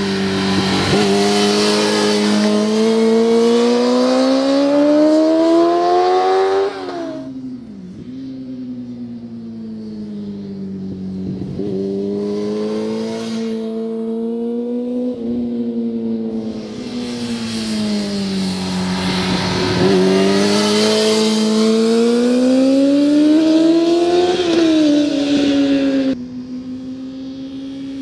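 2003 Yamaha YZF-R6's inline-four engine through a Laser Hotcam exhaust can, revving high with its pitch climbing steadily for several seconds and then falling away, twice over. The sound cuts down abruptly about seven seconds in and again near the end.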